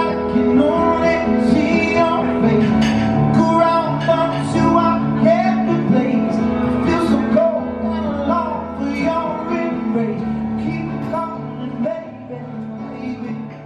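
Music with a singing voice over instrumental accompaniment, fading out toward the end.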